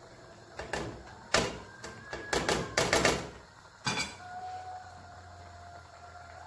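Black plastic spoon scraping and knocking against a non-stick pan of simmering rice during stirring, a run of irregular clacks and scrapes, then a single sharp clack about four seconds in as the spoon is laid down on a plate.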